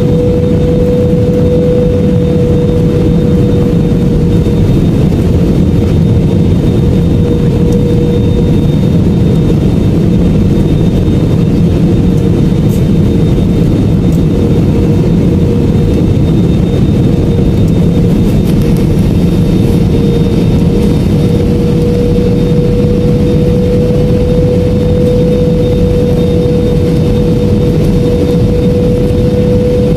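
Steady cabin noise of a jet airliner in flight: a loud, even rush of engines and airflow with a constant hum running through it.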